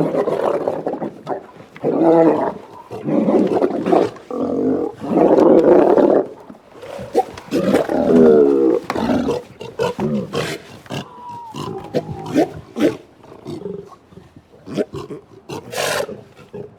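Sea lions calling: a run of loud, harsh, overlapping calls through the first half or so, then quieter, shorter calls with gaps between them.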